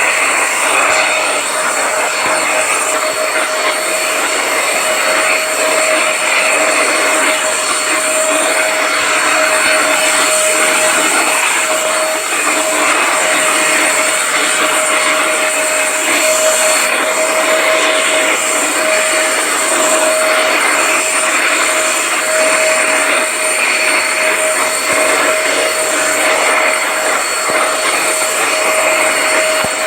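Electric vacuum cleaner running steadily: a constant motor whine over an even rush of air, with no change in speed.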